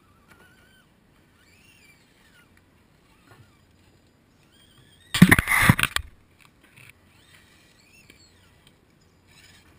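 A GoPro action camera being picked up and moved: one loud scraping, rustling burst lasting about a second, about halfway through. Faint bird chirps carry on underneath.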